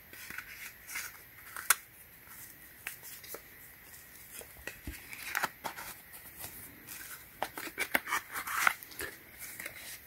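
Small cardboard lighter boxes being handled and closed by hand: scattered light clicks, taps and rustles, one sharper click near the start and a busier run of them in the second half.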